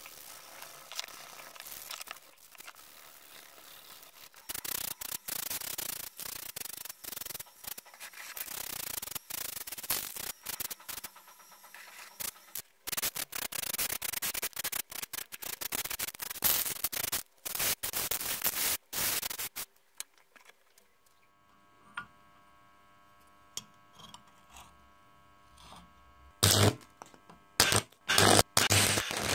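A small power tool rasping on metal, heard in many short stretches that start and stop abruptly, then a quieter stretch with faint steady tones, and loud bursts near the end.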